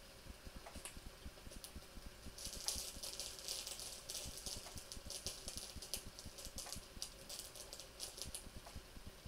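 Metal scraping as a knife blade is worked in quick strokes, as in sharpening, a dense rasping run starting about two and a half seconds in and stopping near the end. A faint, even ticking goes on underneath.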